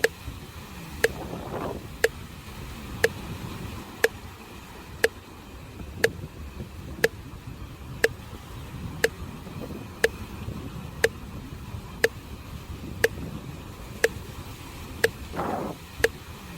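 Sharp ticking exactly once a second, like a metronome or clock, over a continuous low wash of sea waves on the shore. There is a brief rushing swell about one and a half seconds in and another near the end.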